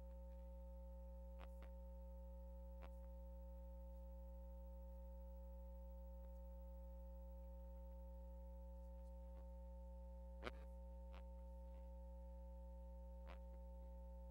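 Very faint, steady electrical hum made of several constant tones, with a few faint ticks, the clearest about ten seconds in. The programme sound has dropped out, leaving only the recording chain's hum.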